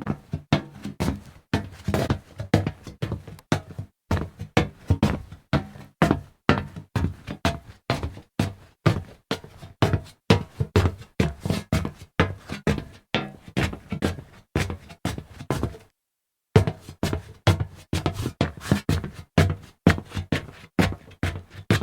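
Footsteps walking over hollow metal, each step a sharp clank with a low ring after it, about two steps a second. The steps stop for a moment about sixteen seconds in, then go on.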